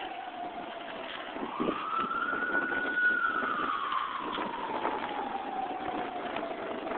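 An emergency vehicle siren on a slow wail. Its pitch falls at first, climbs from about a second in to a peak about three seconds in, then slides slowly down again, over steady street noise.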